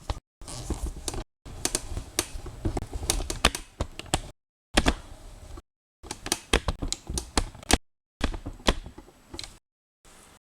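Irregular sharp clicks and taps in quick clusters, broken off by several abrupt dead-silent gaps.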